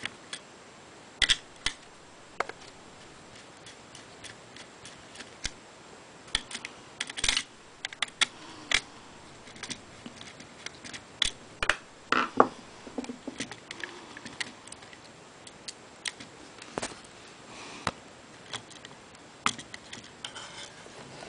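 Irregular small clicks and taps of a screwdriver and hands working at screws on a battery charger's circuit board.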